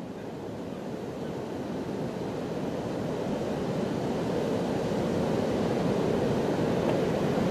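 Steady rumble of surf and wind fading in and growing steadily louder.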